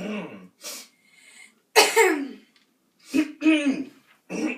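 A run of loud, throaty coughs, about six in a row, each a short hacking burst with a voiced rasp. This is exaggerated cartoon coughing.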